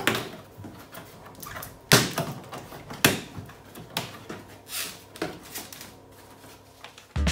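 Corrugated cardboard box being handled: about five separate sharp scrapes and knocks of cardboard, roughly a second apart, with faint rustling between. Music with a whistled tune starts right at the very end.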